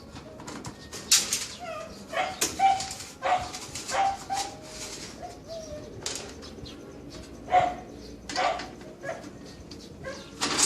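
A dog barking: about a dozen short barks at irregular intervals, with a gap in the middle.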